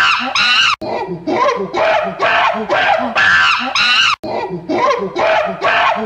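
Rapid voice-like yelps or cries, about four a second with bending pitch, in a short loop that cuts out abruptly and restarts twice.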